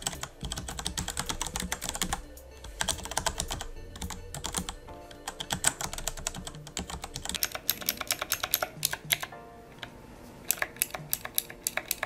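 Fast typing on a Logitech G710+ mechanical keyboard with brown (tactile) switches, a dense run of key clacks. Near the end it changes to sharper, sparser clicks from the blue (clicky) mechanical switch keys of a small Ditto mini speaker.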